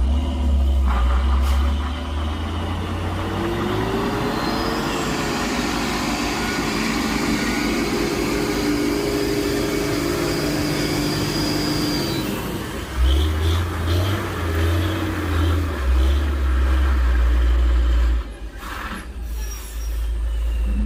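A Hino flatbed lorry's diesel engine working hard as the lorry crawls around a rough, muddy bend. The engine note rises about four seconds in and then holds. In the second half the rumble surges unevenly, then drops back near the end, where a few short hissing bursts come.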